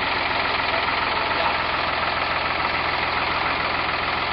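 A motor vehicle's engine idling steadily, with a fast, even firing pulse.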